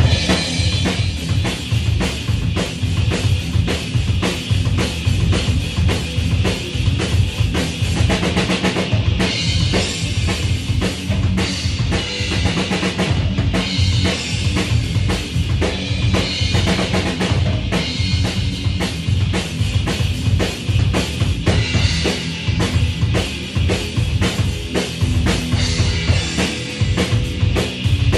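A Tama drum kit played live: a dense run of bass drum and snare hits under a continuous wash of cymbals.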